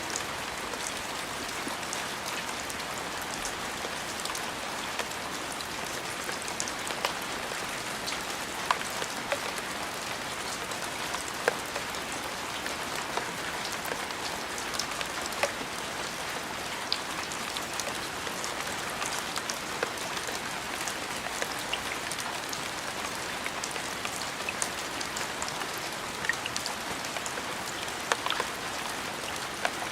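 Steady rain falling: an even hiss with scattered sharp ticks of drops striking a surface.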